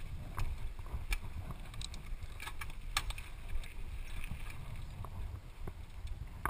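Low rumble of wind and movement on a handlebar-mounted action camera, with scattered sharp clicks and rattles from a mountain bike rolling slowly over gravel.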